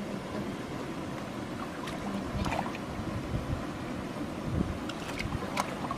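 Wind buffeting the microphone, with hands working in a muddy, water-filled hole: a few short wet squelches and splashes, two about two seconds in and two more near the end.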